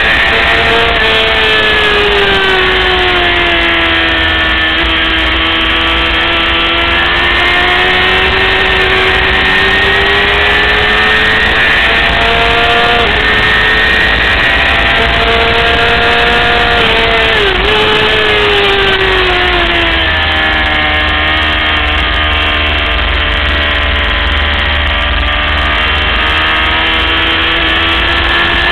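600 cc racing motorcycle engine running hard at high revs during race laps. Its pitch rises and falls steadily as the bike accelerates and slows, with a few sudden brief drops and changes of pitch at gear changes.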